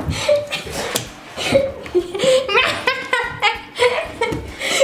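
Two young women laughing together, with a run of quick repeated ha-ha pulses in the middle.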